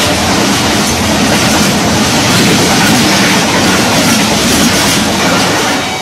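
Passenger coaches of a Pakistan Railways express train passing close by at speed: a loud, steady rush of wheels on rail.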